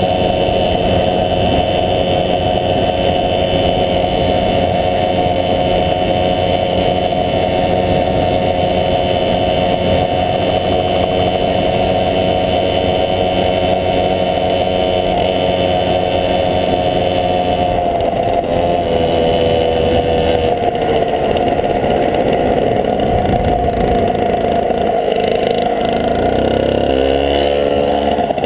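1971 Tunturi Maxi moped's two-stroke engine running steadily at riding speed. About two-thirds of the way through the engine note drops as the throttle eases off, and near the end it revs up and down again.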